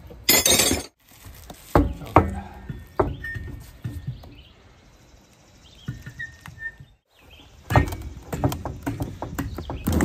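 Scattered metal knocks and clinks from handling a truck's front wheel and its lug nuts as the wheel is hung back on the hub, busiest near the end. There is a short rush of noise at the start and a few bird chirps in the quieter middle.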